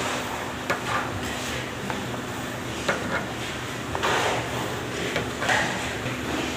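A knife cut through a crumbly baked mysore pak slab in a metal baking tray: the blade scrapes through the crumbs and now and then clicks against the tray, over a steady low hum.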